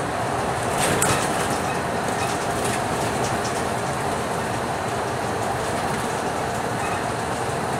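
Cabin noise of a Scania K310UB bus with Volgren Optimus body cruising on a highway: steady engine and road noise, with a few light rattles about a second in.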